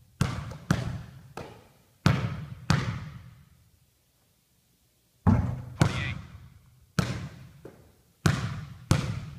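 A 94Fifty smart-sensor basketball bouncing on a gym floor, about ten single bounces, mostly in pairs, each echoing around the gymnasium, with a pause of about a second and a half in the middle.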